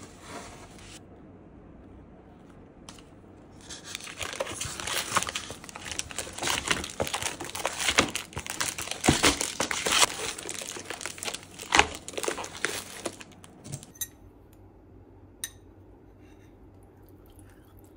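Plastic vacuum packs crinkling as they are handled in a styrofoam box: a dense run of crinkling and clicking starts about four seconds in and goes on for about nine seconds, then dies down to a few faint clicks.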